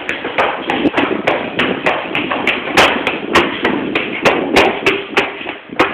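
A spoon knocking against a bowl in quick, regular taps, about three a second, as brownie mix is stirred.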